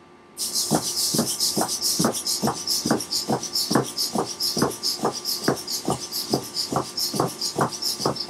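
Hexapod robot's Tower Pro MG90S micro servos driving its legs through a walking gait, starting about half a second in: a steady high gear buzz with a falling whir about every 0.4 seconds as each set of legs steps on a wooden floor.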